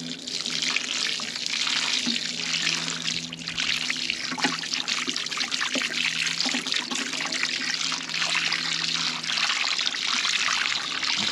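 Blue plastic watering can with a sprinkler rose showering a steady stream of water onto pebbles and sand in a plastic bucket, rinsing the bottom layers of a homemade grey-water filter.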